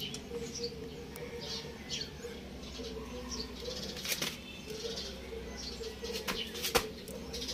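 Small birds chirping off and on in short high notes, over a faint steady hum, with a couple of sharp clicks.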